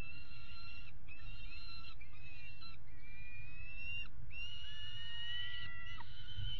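Juvenile peregrine falcon begging for food: a run of drawn-out, high wailing calls, each about a second long with short breaks, the last one longer. A steady low hum runs underneath.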